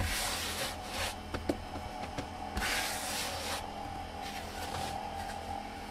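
Floury hands rubbing and dragging a ball of bread dough across a floured plastic cutting board while shaping it into a tight loaf. There are two longer scraping strokes, one at the start and one about midway, then lighter ones near the end.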